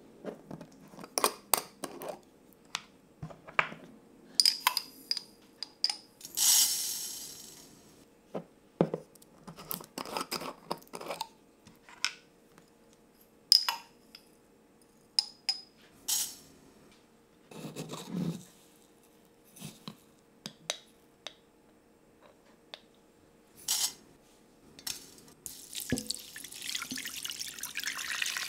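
Short clicks and taps of glass spice jars, metal screw lids and a pot handled on a wooden table, with a brief rattling pour about six seconds in. Near the end, water starts pouring into the pot.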